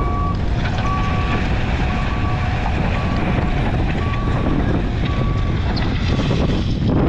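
Diesel engine of a JCB tracked skid steer running under work, with a reversing alarm beeping about once a second until near the end.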